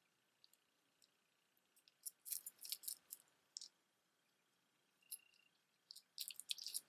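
Faint scattered clicks of a heavy necklace of large quartz pieces on a metal chain being handled, stones and links knocking together, in two short clusters.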